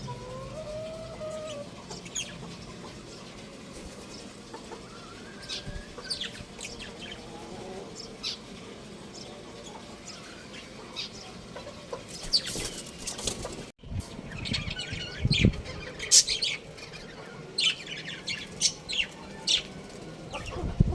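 Young rooster and other chickens calling: a few low, gliding clucks at the start, then many short, high chirps scattered throughout, growing louder and more frequent in the last third.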